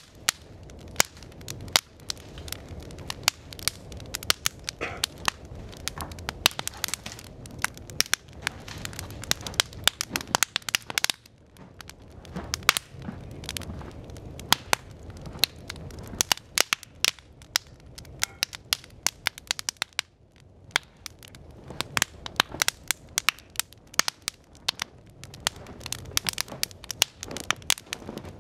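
Wood fire crackling, with frequent sharp, irregular pops as a teepee of split kindling catches and its flames grow, over a low steady rush.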